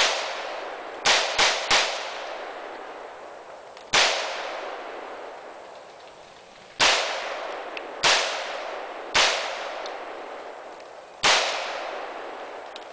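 AR-15 rifle fired about nine times at an uneven pace: a quick string of three shots about a second in, then single shots every one to three seconds. Each shot has a long echoing tail.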